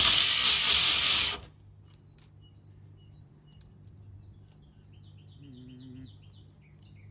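A cordless power tool cutting the van's sheet-metal roof runs loudly, then stops abruptly about a second and a half in; the owner takes the stop for a weak battery. Afterwards birds chirp, with a quick run of chirps near the end.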